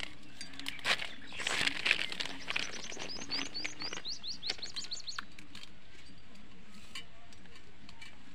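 Scraping and a few knocks as boiled-bean paste is wiped off a flat stone grinding slab by hand, loudest about two seconds in. Then a bird calls with a rapid run of short, rising high chirps for about two seconds.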